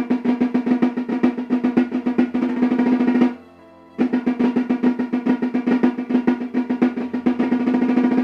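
Snare drum played with sticks: a rapid run of Swiss army triplets with shifting accents, closing each time in a denser flam roll. It is played twice, stopping about three seconds in and starting again a moment later, the drum head ringing under every stroke.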